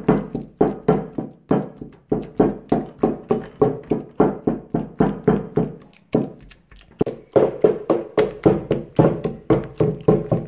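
Wooden pestle pounding overripe bananas in a metal bowl: a steady run of knocks, about three or four a second, each with a short low ring from the bowl. The pounding pauses for about a second a little past the middle, then carries on.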